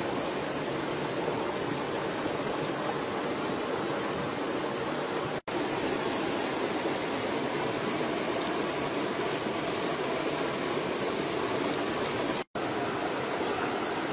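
Steady, even rushing noise like running water, with no distinct events, cutting out for an instant twice, about five seconds in and near the end.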